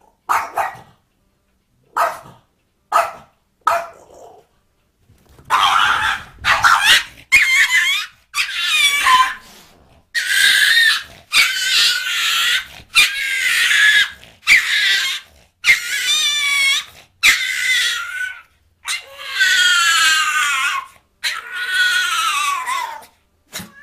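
A dog barking and whining: a few short, sharp barks, then a long run of high, drawn-out yelps and whines whose pitch rises and falls, one after another with short gaps.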